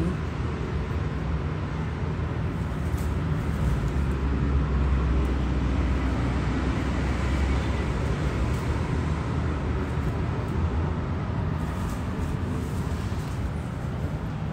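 Steady low rumble of city traffic, with a few short, faint rustles as basil leaves are picked from potted plants.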